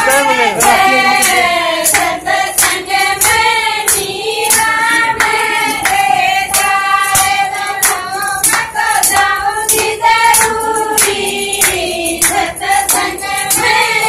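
A group of women singing together, with steady rhythmic hand clapping keeping the beat.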